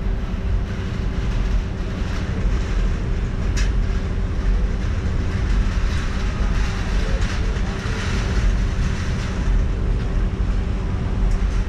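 Steady low rumble of a car in slow stop-and-go traffic, picked up by a camera on its roof, with wind buffeting the microphone and a steady hum underneath. A single sharp click about three and a half seconds in.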